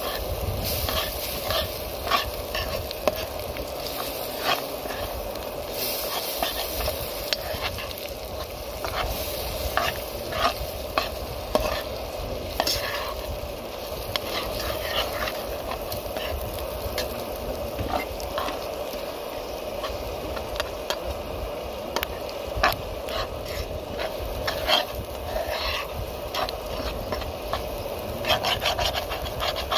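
Metal spoon stirring and scraping a spice mix into chopped onions and peppers frying in a pan. A steady sizzle runs underneath, with frequent sharp clicks of the spoon against the pan.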